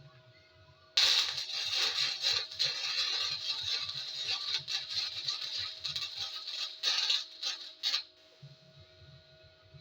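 Arc welder laying a weld on a steel truck frame: the arc starts abruptly about a second in and crackles steadily for about seven seconds, sputtering in a few short bursts near the end before cutting off.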